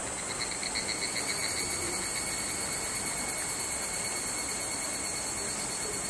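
Insects singing steadily in summer woodland: a continuous high buzz, joined about a third of a second in by a pitched whistling note that pulses at first and then holds steady.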